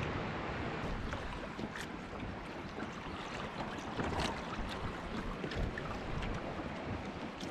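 Water lapping and splashing against the hulls of a Hobie Tandem Island sailing kayak as it moves through calm water, with small irregular splashes and a steady rush of wind on the microphone.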